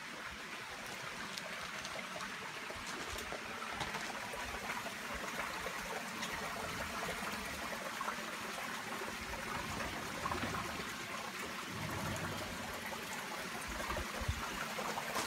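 Small creek trickling and splashing over stones in a stone-lined channel, growing gradually louder.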